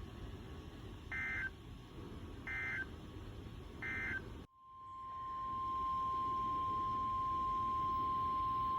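Emergency Alert System broadcast signals: three short warbling two-pitch data bursts about a second and a quarter apart, the SAME end-of-message code. After a brief dropout, the steady single-pitch 1050 Hz NOAA Weather Radio alert tone fades in and holds.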